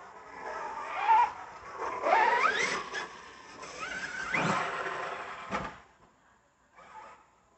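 Losi DBXL-E 2.0 electric buggy's brushless motor whining up in pitch as it is throttled hard, in several rising bursts about one, two and four and a half seconds in, over tyre and gravel noise. A short knock comes about five and a half seconds in.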